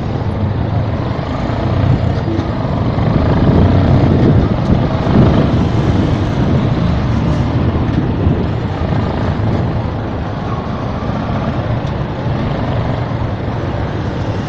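Motorcycle riding through city traffic: the engine runs under a heavy layer of wind and road noise on the mic. The sound swells for a few seconds, about two seconds in, then settles back.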